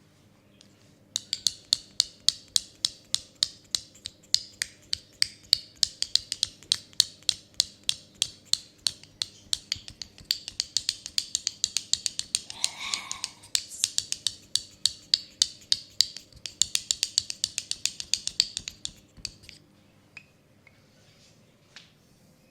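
Rapid finger snapping as an ASMR trigger: an even run of sharp snaps, about four a second, starting about a second in and stopping about 19 seconds in.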